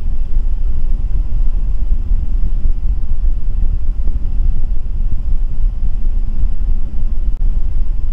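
Truck engine idling, heard from inside the cab as a steady low rumble.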